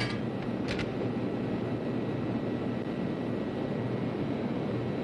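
Engine-room machinery running with a steady low drone, with a couple of short metallic clicks in the first second.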